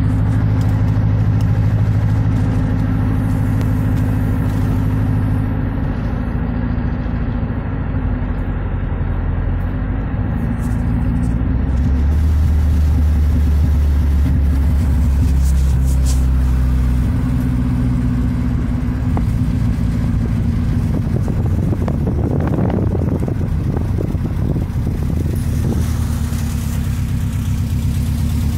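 Steady engine drone and road noise from inside a pickup truck's cab while driving, the engine note shifting a few times as speed changes.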